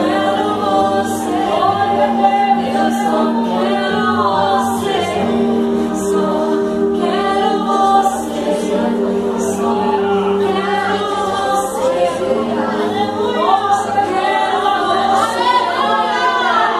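A group of young people singing a Christian worship song together as a choir, holding long sung notes.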